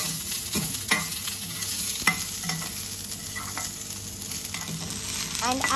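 A metal spoon stirring sliced onion, garlic and roasted spices in an aluminium kadai, clicking and scraping against the pan a few times over the steady sizzle of frying in a little oil.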